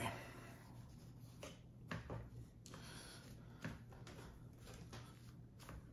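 Faint, soft rustles and light taps of hands smoothing and pressing paper towels flat over a wet comic book in a tray to blot out the moisture, over a low steady room hum.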